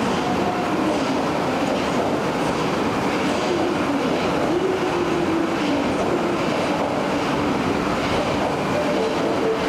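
Osaka Metro Midosuji Line 30000-series subway train running past the platform: a steady rumble of wheels on rail with a low motor tone that wavers in pitch, a higher tone joining near the end.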